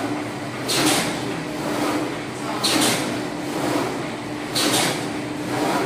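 Paper straw making machine running with a steady hum, broken by a short swishing stroke about every two seconds, three times, as the cutter slices a length off the wound paper tube.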